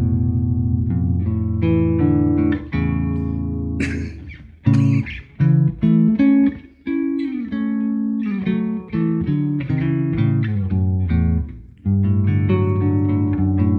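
A Squier Bass VI, a six-string bass tuned an octave below a guitar, picked in mellow arpeggiated chord phrases with short pauses between them. There is a brief scratchy noise of pick or string about four seconds in.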